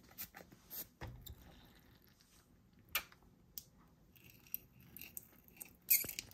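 Light, scattered clicks and taps of plastic toy parts being handled, with one sharper click about three seconds in and a short hissing burst near the end.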